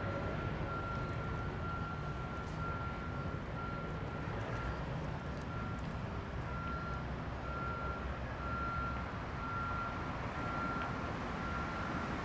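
Reversing alarm of a construction vehicle beeping in a steady, even rhythm over the low rumble of its engine.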